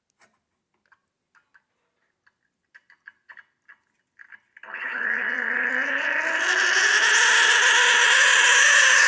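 Breville espresso machine's steam wand opened: a few faint clicks, then about four and a half seconds in a sudden rush of hissing water and steam that grows louder, with a rising tone beneath it. The water standing in the shared water and steam system is purging out before dry steam comes.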